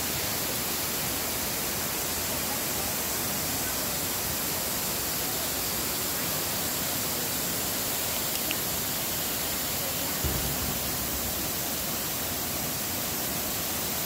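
Steady rush of Anna Ruby Falls, the twin waterfalls of Curtis and York Creeks pouring over granite into the creek below. A brief low thump about ten seconds in.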